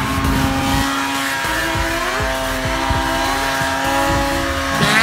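Snowmobile engine running at high, steady revs, with a change in pitch near the end.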